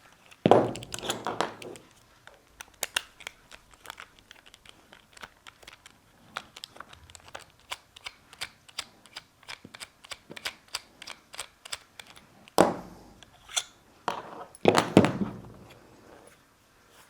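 Run of small ticks and clicks as screws are turned out of an airsoft rifle with a screwdriver, several ticks a second, with a few louder knocks of parts and tools being handled near the start and again near the end.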